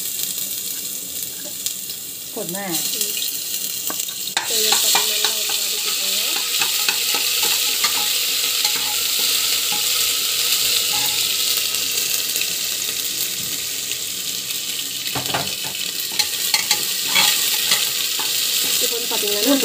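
Ginger-garlic paste and cumin seeds sizzling in hot oil in a pressure cooker, stirred with a spoon that clicks against the pot now and then. The sizzle grows louder about four and a half seconds in.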